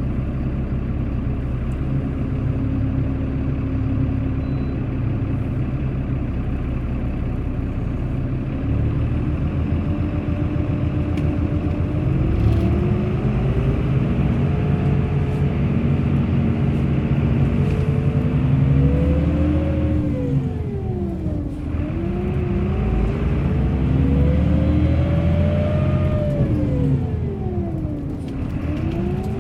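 Bus engine running with a steady low rumble. In the second half its revs climb and drop twice.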